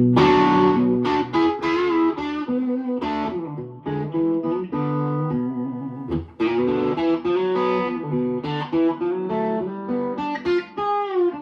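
Electric guitar on its bridge pickup, played through a Fender Princeton Reverb amp with added mid-range from a Boss EQ: a run of picked single notes, with a string bend near the end.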